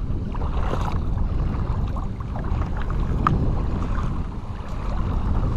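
Shallow bay water sloshing and splashing around legs wading through it, with scattered small splashes and a low wind rumble on the microphone.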